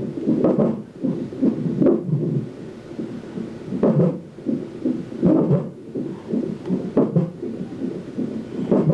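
Fetal heart monitor's Doppler speaker playing an unborn baby's heartbeat during a non-stress test: a fast pulsing beat, with a louder thump every second or two.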